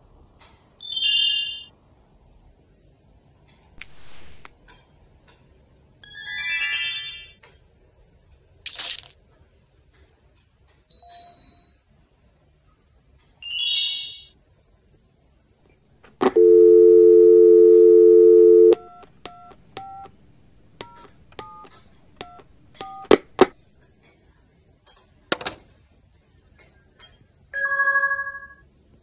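A string of short electronic sound effects, one after another: brief high chime and notification-style tones about every two seconds, then a loud steady buzzing tone for about two and a half seconds. After it come quick two-pitch beeps, a few sharp clicks and one more short tone.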